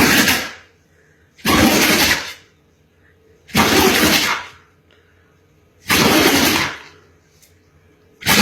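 A dog sneezing over and over, one loud sneeze about every two seconds.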